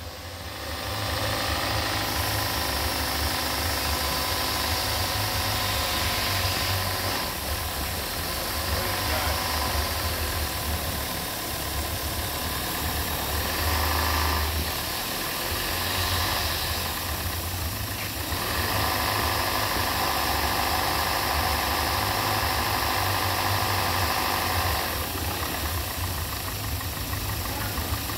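2020 Hyundai Elantra's DOHC 16-valve four-cylinder engine idling steadily in a running test of the engine, its level and pitch shifting slightly a few times.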